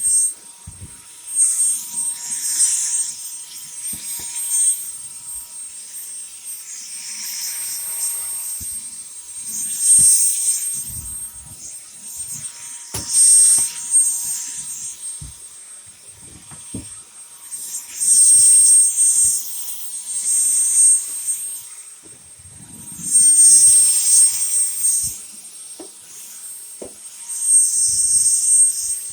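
Dyson V10 cordless stick vacuum running: a steady high-pitched motor whine, with hissing rushes of air swelling every few seconds and scattered short knocks.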